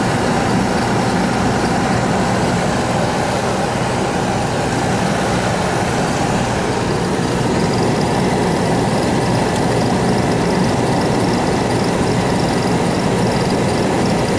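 Oil-fired furnace running, its burner and blower giving a steady, even hum and rumble.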